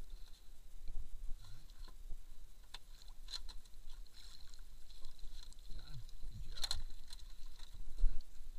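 Water splashing as a hooked fish is hauled up on a trotline and scooped into a landing net at the side of a boat, with scattered knocks against the hull; the loudest splash comes a little past the middle.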